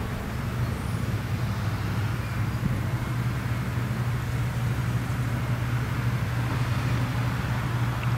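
Steady low mechanical hum, like a running engine, over a continuous wash of outdoor background noise.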